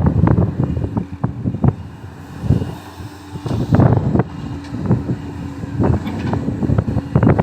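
Diesel engine of a JCB 3DX backhoe loader running steadily, with irregular gusts of wind buffeting the microphone.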